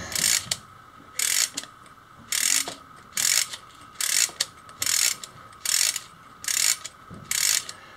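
3D-printed wind-up fan being wound by hand: the plastic winding mechanism gives a short burst of clicks with each turn of the key, nine turns about a second apart, tensioning a spring taken from a tape measure.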